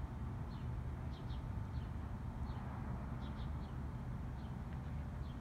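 A bird's short, high chirps, each sliding down in pitch, repeated irregularly several times a second, over a steady low rumble.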